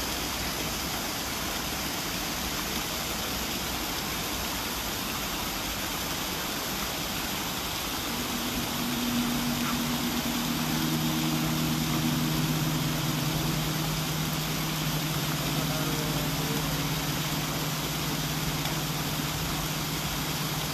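Waterfall rushing steadily throughout. About eight seconds in, a large hanging gong played softly with a mallet swells up into a low hum of several steady tones that ring on.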